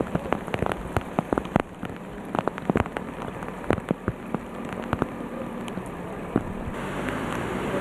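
Swollen river floodwater rushing as a steady hiss, with many irregular sharp crackles and taps on top. The hiss grows brighter near the end.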